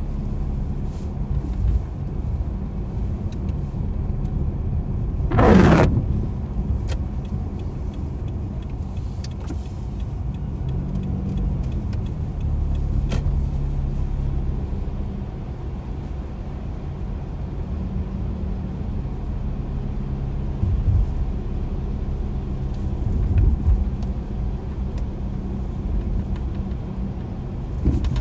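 Car driving on a wet road, heard from inside the cabin: a steady engine and tyre rumble with scattered faint ticks. About five seconds in comes a short, loud rush of noise, the loudest moment.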